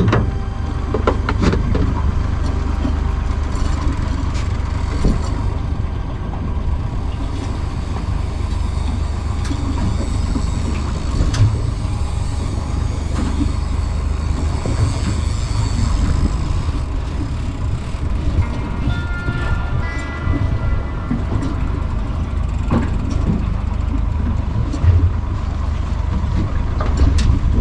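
Outboard motor running steadily at slow trolling speed, with a low, constant drone.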